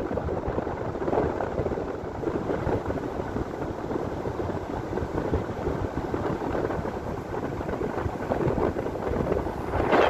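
Wind buffeting the microphone: a steady, rough rumble that rises and falls in gusts.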